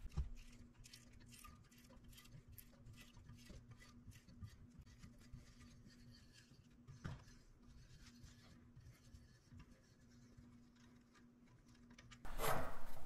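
Faint, irregular small clicks and scratches of a hand tap cutting threads in a radial hole in an aluminum collar held in a vise, over a low steady hum. One slightly sharper click comes about seven seconds in.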